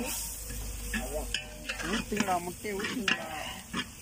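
Onions and curry masala sizzling in hot oil in a large metal pot while a ladle stirs them, with voices in the background.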